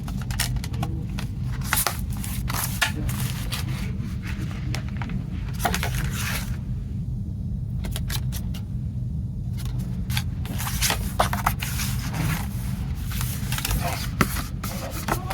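Hands handling CD and Blu-ray packaging: scattered short scrapes, rustles and crackles of plastic wrap and a cardboard slipcase over a steady low hum.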